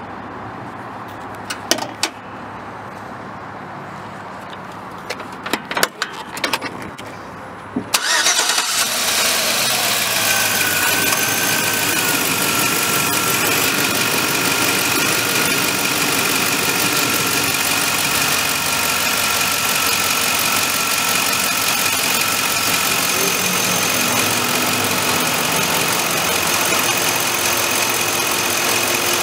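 A few sharp clicks and knocks, then about eight seconds in the 2005 Chevy Avalanche's 5.3-liter Vortec V8 starts and settles into a steady idle.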